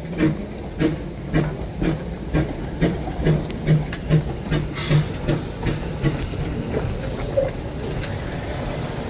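Narrow-gauge steam locomotive 'Santa Teresa' with a rhythmic beat about two a second over a steady hiss of steam. The beat dies away about six and a half seconds in, leaving only the hiss.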